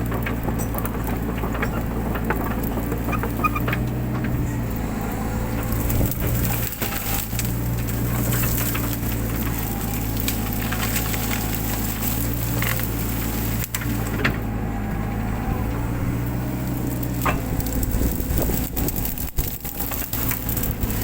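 Mini excavator's diesel engine running steadily under load, with the cracking and snapping of brush and branches being crushed and torn out by the machine.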